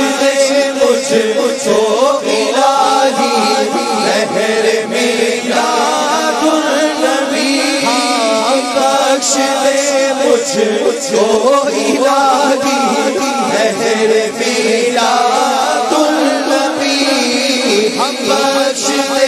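Voices chanting a devotional Islamic chant together, loud and steady, with melodic phrases that rise and fall.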